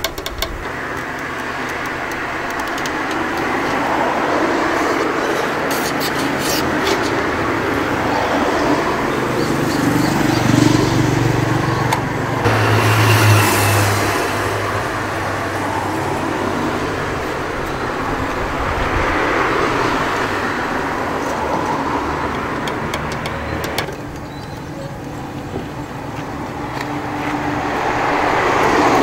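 Road traffic noise: vehicles passing, the rushing sound swelling and fading several times, one louder, lower-pitched vehicle about twelve seconds in, with a few sharp clicks about five to seven seconds in.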